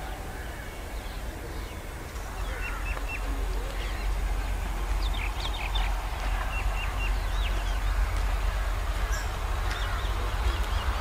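Small birds chirping over and over, with a steady low rumble and a hiss that grows louder from about two seconds in.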